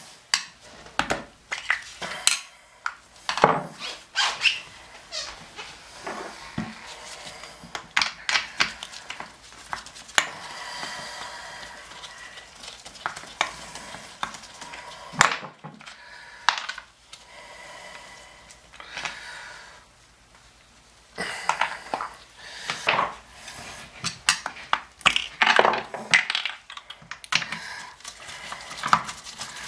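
Metal hand tools clinking and scraping against a porcelain toilet bowl base as the bolt caps are pried off and the closet-bolt nut is turned with a socket driver: irregular clicks and clatter.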